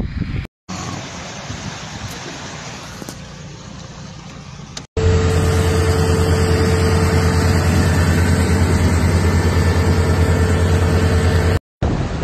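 A steady rushing noise that slowly fades. From about five seconds in, it gives way to a louder motor vehicle engine running with a steady low drone.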